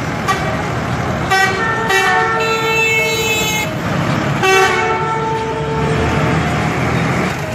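A vehicle horn sounds in three blasts, a short one, then a long one of about two seconds, then a shorter one. Under it is the steady engine and road noise of a bus driving close past.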